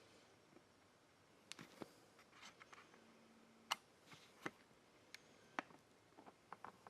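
Near silence in a workshop, broken by faint scattered clicks and light taps, about a dozen at irregular spacing.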